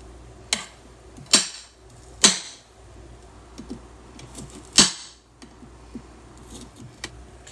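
Kitchen knife chopping cauliflower florets on a cutting board: four sharp knocks of the blade hitting the board, unevenly spaced over the first five seconds, with fainter taps between.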